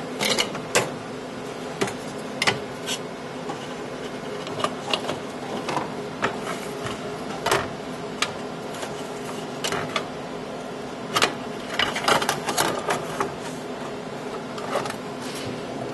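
Irregular clicks and light knocks of metal parts and screws being handled as an LCD screen assembly is fitted back into a tape library's frame. A steady hum of room equipment runs underneath.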